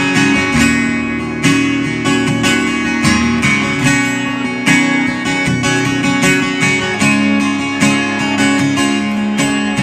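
Instrumental break in a country song: acoustic guitar strumming chords in a steady rhythm, with no singing.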